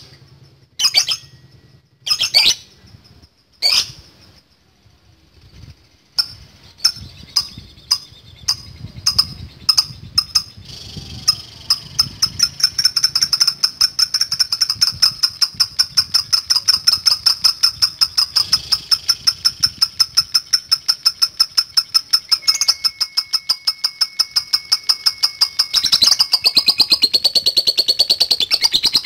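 Lovebird singing: a few separate sharp calls, then from about six seconds a run of rapid notes that speeds up into one long unbroken chattering trill, the long 'ngekek' song, lasting nearly twenty seconds.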